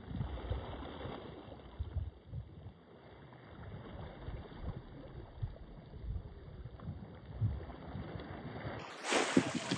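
Wind buffeting the phone's microphone, an uneven low rumble. About nine seconds in it cuts to a louder, brighter rush of wind and water.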